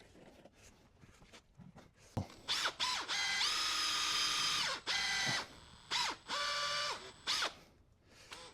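Power drill run in about five trigger pulls, each spinning up and winding down. The longest lasts about a second and a half. It is drilling a hole in the tire to drain its beet-juice ballast.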